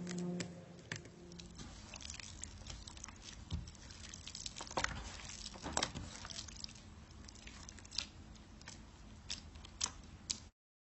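Slime being squished and worked by hand: irregular sticky clicks and small wet crackles, with a few sharper snaps, cutting off abruptly near the end.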